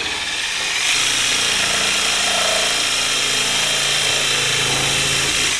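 Power tool running steadily as it trims the headlight opening cut into the Club Car DS golf cart's front body panel, then cutting off abruptly.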